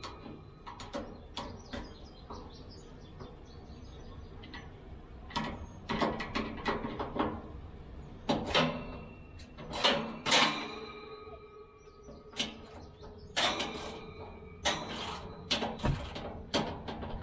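Hand screwdriver turning small screws into a steel smoker's end cap: irregular sharp metallic clicks and scrapes, some of them ringing briefly.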